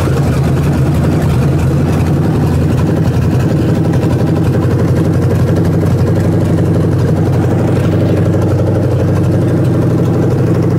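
Freshly rebuilt Ford 302 V8 on an engine run stand idling steadily, having just caught on a restart, with its ignition timing backed off from too much advance.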